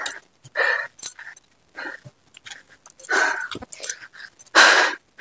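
A person breathing hard close to the microphone in quick, irregular gasps, out of breath after climbing the hill.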